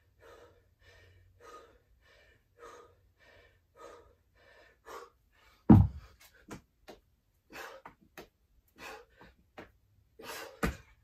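A man panting hard after 77 dumbbell burpees, short, even breaths about every half second. About six seconds in there is a loud thud as 25 lb hex dumbbells are put down on the floor mat, and another sharp knock near the end.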